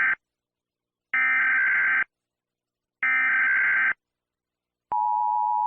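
Emergency Alert System SAME header data bursts: the end of one burst, then two more buzzing bursts about a second long with a second's gap between them. About five seconds in, the steady two-tone EAS attention signal begins.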